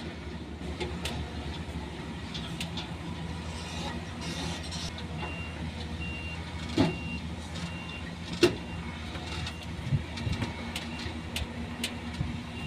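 A heavy diesel vehicle's engine runs steadily while, from about five seconds in, its reversing alarm beeps about twice a second. Two sharp knocks stand out midway.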